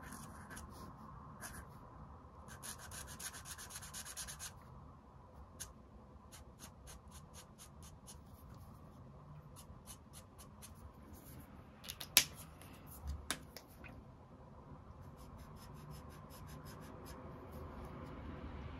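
Felt brush nib of a marker rubbing on paper in quick short strokes, in runs with short pauses between. Two sharp clicks about a second apart come past the middle.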